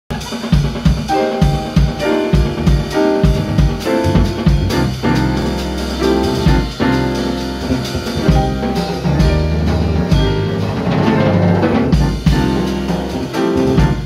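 Live jazz combo playing: a drum kit played with sticks over electric bass and piano notes, with a steady beat.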